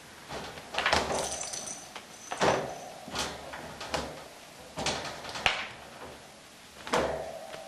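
Wire cage rattling and clanking as kittens climb and scramble against its bars, in a series of sudden clatters, some ringing briefly.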